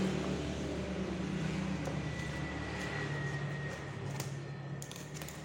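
A steady low mechanical hum over a noise haze, with a few faint clicks near the end.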